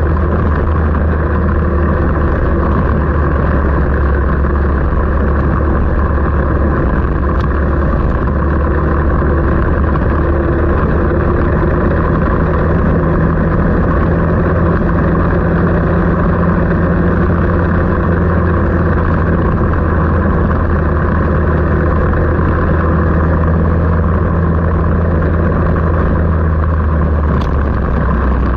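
A vehicle engine running loud and steady, with a constant low drone and a dense hiss over it; the pitch hardly changes.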